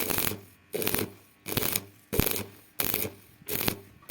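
Rhythmic rasping strokes on metal, six of them, about one every 0.7 s, each starting sharply and trailing off, like a file or abrasive being worked back and forth on iron stock.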